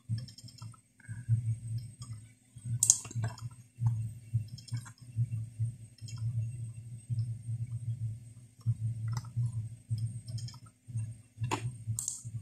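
Computer mouse clicking: a few scattered single clicks, a sharp one about three seconds in and two close together near the end, over a low, pulsing hum.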